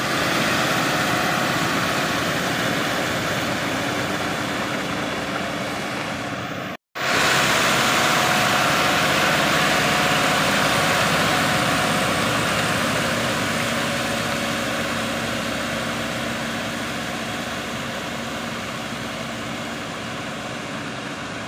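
Diesel engine of a CHAMP rubber-track crawler tractor running steadily under load as it drags a rotary tiller through a flooded rice paddy, its tracks and tiller churning the wet mud. The sound cuts out for a split second about seven seconds in, comes back louder, then slowly fades as the tractor moves away.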